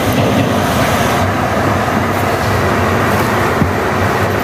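Small boat engine running steadily: a continuous low, humming drone.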